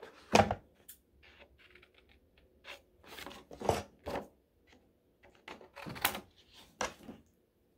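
Sheets of paper rustling as they are handled and lined up, then scissors cutting through paper in short, irregular snips.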